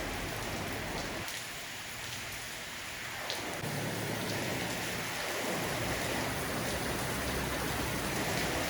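Heavy rain falling steadily, a dense even hiss of rain on surfaces, with a low rumble underneath in the second half.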